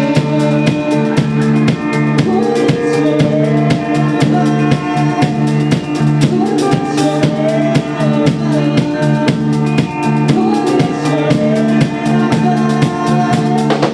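A band of drum kit, bass and guitar playing an instrumental groove: a steady drum beat under sustained bass notes, with a wavering melodic line on top.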